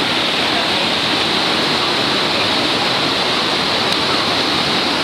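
Niagara River rapids rushing: a loud, steady wash of white water with no let-up.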